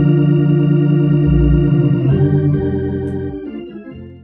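Background organ music holding sustained chords, changing chord about two seconds in, then fading out near the end.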